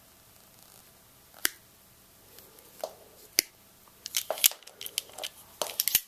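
Hand compression tool pressing an F-connector onto RG6 coax cable: a few sharp clicks, the loudest about a second and a half in and near the middle. A quick run of plastic and metal clicks and rattles follows in the last two seconds as the tool is opened and the cable taken out.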